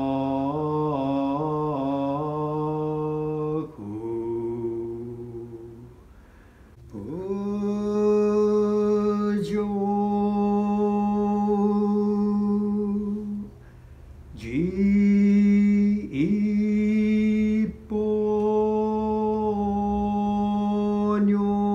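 Buddhist sutra chanting in the Japanese Shin style: a voice draws out syllables in long held notes lasting several seconds each. The voice slides up into each note, with short pauses for breath between notes.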